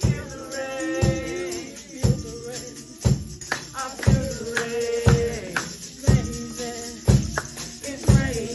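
Live church band playing gospel music: keyboard, electric guitars and a drum kit, with held chords over a steady beat of drum hits about once a second.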